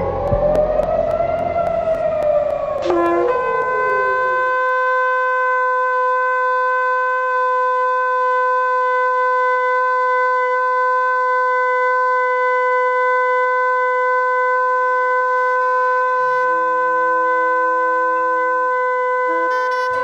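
Air-raid warning siren wailing up and down and dying away about four seconds in. A single long shofar blast starts about three seconds in and holds one steady note through the rest. Soft lower musical notes enter beneath it near the end.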